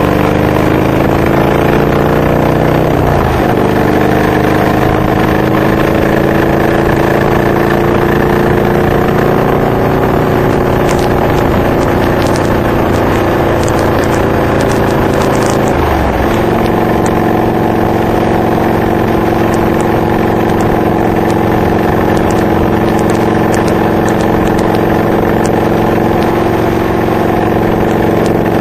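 Honda VTX 1300R V-twin running through Hard Krome K2 pipes fitted with Michael's Resonators baffles, pulling up through the gears. The engine note rises, drops with an upshift about three seconds in, climbs slowly again, and drops with another upshift about halfway through. It then holds a steady cruise.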